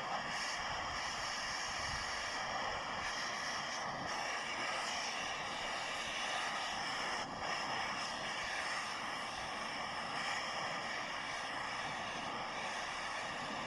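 Steady mechanical running noise with several constant high tones, unchanging throughout apart from a brief dip about seven seconds in.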